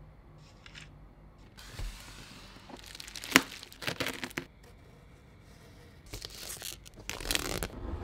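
Product packaging being handled and opened: wrapping rustling and tearing in bouts, with one sharp click about three and a half seconds in.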